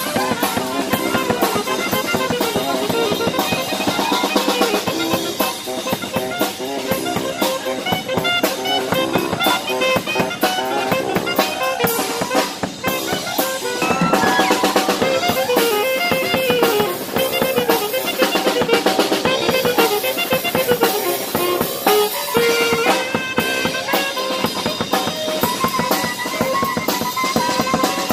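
Music with a drum kit beat under a moving melody line, playing steadily and fairly loud.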